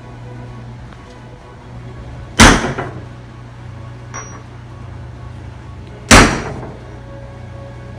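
Two heavy hammer blows on metal, a few seconds apart, each ringing briefly, as a bearing that would not drop on after heating is driven onto its seat. A steady low hum runs beneath.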